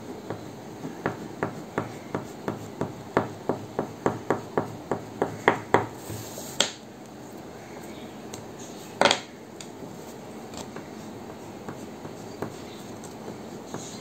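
Short, quick crayon strokes on paper, a rhythmic tapping of about three to four strokes a second that grows louder, followed by two louder single knocks a few seconds apart and then only scattered faint ticks.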